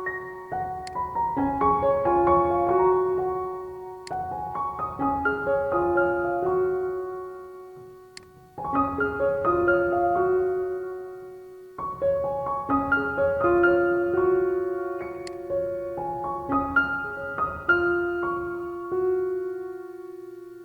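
Instrumental background music: a gentle keyboard melody in repeating phrases of about four seconds, briefly dipping in level near 8 and 12 seconds in.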